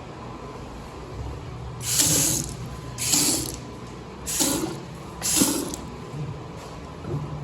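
Restroom sink faucet spraying water into the basin in four short bursts, each about half a second long and roughly a second apart.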